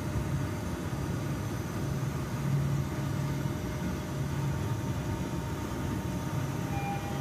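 Low, steady motor hum with an uneven throb from the working model's drive as the model dump truck moves slowly along the road. A faint short tone sounds near the end.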